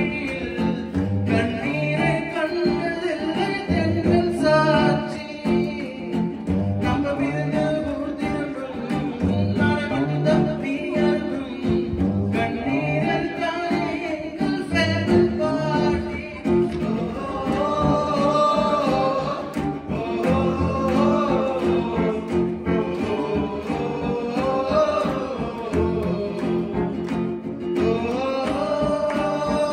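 Live singing into a microphone with guitar accompaniment, part of a song medley, over a steady rhythmic low beat.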